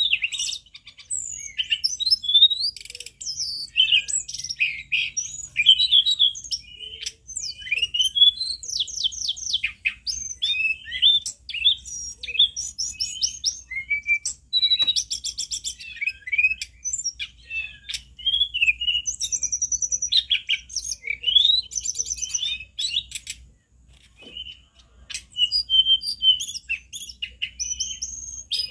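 Male hill blue flycatcher singing loudly and without let-up: a long, varied song of sweeping whistles, rapid repeated notes and fast trills, broken by one short pause late on.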